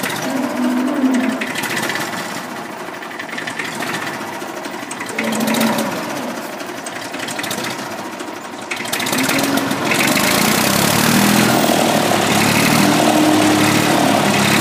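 Fordson Dexta tractor's three-cylinder diesel engine running, growing louder about nine seconds in and then holding steady.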